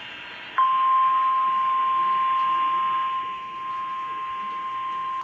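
Weather-radio alert tone: a single steady high tone of about 1 kHz switches on abruptly about half a second in and holds, heard through a small radio speaker. It signals that a warning, here a flash flood warning, is about to be broadcast.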